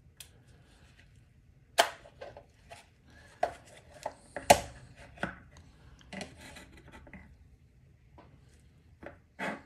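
Hard plastic clicks and knocks as a 3D-printed battery holder is unlatched and pulled out of a Fuji GX680 battery tray and set down on a wooden tabletop: an irregular string of sharp taps, the loudest about four and a half seconds in, and a double knock near the end.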